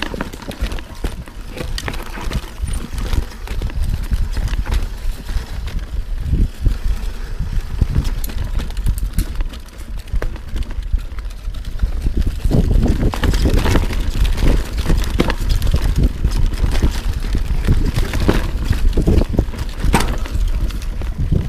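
Yeti SB6c mountain bike riding down a rocky dirt singletrack: the tyres rumble over rocks and roots and the bike rattles and clatters with many sharp knocks, more densely in the second half.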